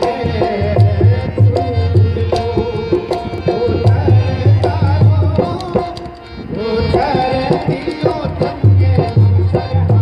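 Rajasthani Langa folk music: a hand drum keeps a driving beat under a melody that bends in pitch, with singing. The drum drops out briefly past the middle, then comes back.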